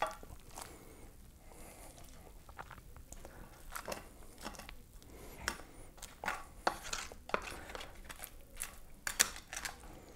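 A slotted spatula scraping and clicking against a glass baking dish as it digs under and lifts baked lasagna rolls, with soft squishes of the cheesy pasta. Irregular small clicks, with a few louder ones in the second half.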